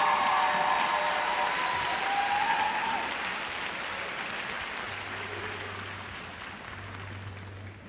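Large arena audience applauding, the applause slowly dying away.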